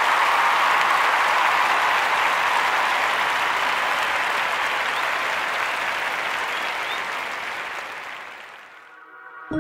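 Applause: steady clapping that fades out over the last second or two.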